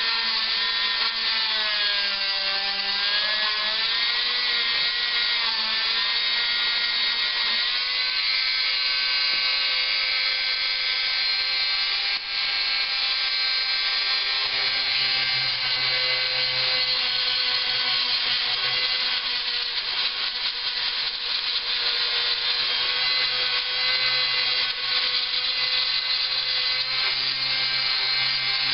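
Small hand-held electric rotary tool grinding and sanding the plastic of a laptop case. Its whine dips and rises as it is pressed into the work during the first several seconds, then runs steadier under the scraping of the bit.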